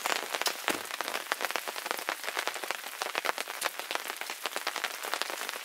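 Steady rain, with many drops tapping irregularly on a surface.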